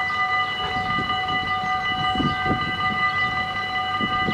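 Dutch automatic level-crossing warning bells ringing steadily with a bright, high ring. A few low rumbles come through about two seconds in and again near the end.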